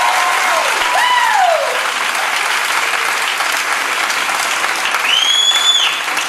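Audience applauding steadily, with a falling cheer about a second in and a long high whistle near the end.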